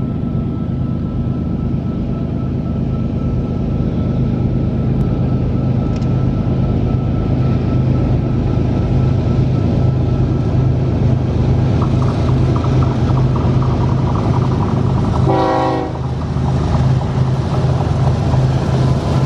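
Diesel locomotives at the head of a freight train running under power as they approach, a steady engine drone that grows gradually louder. About fifteen seconds in comes one short horn blast.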